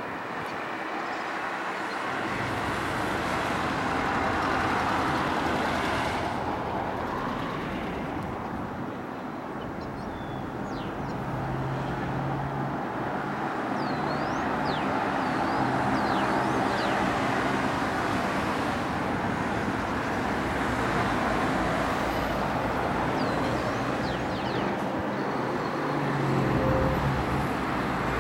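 Road traffic: cars passing one after another on a multi-lane road, a steady wash of tyre noise with engine hum that swells as vehicles go by, louder about halfway through and again near the end. A few short high chirps sound over it.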